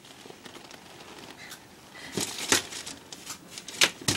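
Pen or pencil writing on a paper test at a table: low scratching and paper handling, with a few sharp taps in the second half.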